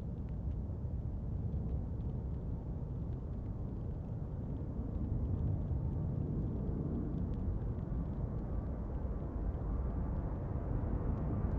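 Airbus A340-300's four CFM56 engines at takeoff thrust as the jet rolls and lifts off: a steady rumble that grows louder about five seconds in.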